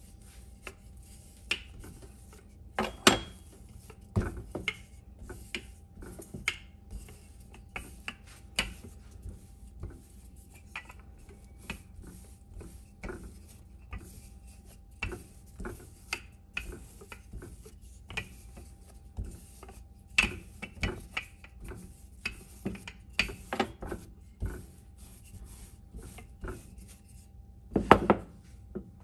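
Wooden rolling pin working bread dough on a wooden cutting board: irregular knocks and clicks of wood on wood as the dough is rolled out, loudest about three seconds in and again near the end.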